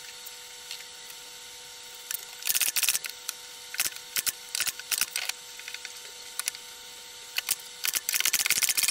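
Cordless brad nailer firing nails into cedar cross braces: a string of sharp snaps, single shots spaced about half a second to a second apart, with quick runs of several shots about two and a half seconds in and near the end.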